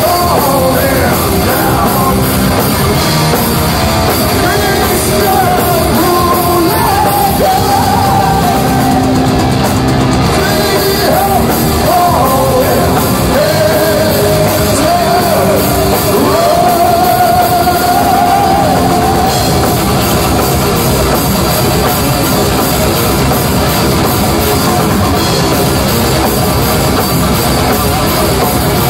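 Heavy metal band playing live through a club PA: distorted electric guitar, bass guitar and drum kit, heard from the crowd. A wavering lead melody rides over the band for roughly the first twenty seconds, then drops away, leaving the full band.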